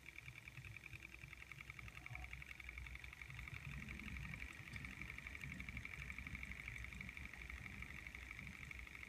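Two model Stirling hot-air engines, a Wiggers Stiwi 1 and a model 94-200, running together with a fast, steady, light ticking of about eight to ten beats a second, over a soft low rumble.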